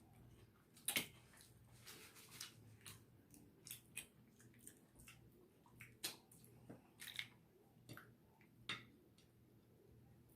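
Faint eating sounds: scattered clicks and snaps of king crab legs being cracked and chewed.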